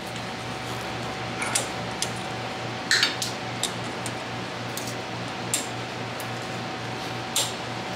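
Needle-nose pliers working a steel cotter pin out of a castle axle nut on a wheel hub: a handful of sharp metal clicks and clinks, a second or two apart, over a steady low hum.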